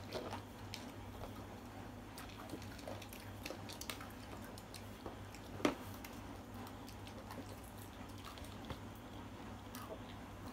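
Faint scattered clicks and taps of small plastic toy cups and bowls being handled on a table, with quiet chewing, and one louder tap about halfway through.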